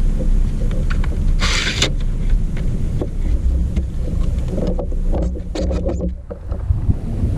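Wind buffeting the microphone as a steady low rumble, with a short burst of hiss about one and a half seconds in and a quick run of clicks and knocks around five to six seconds.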